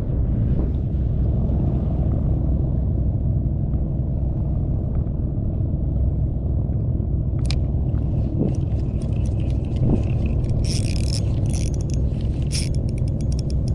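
Steady low rumble of wind buffeting the camera microphone on the water, with a sharp click about halfway and a run of light clicks and rattles in the last few seconds.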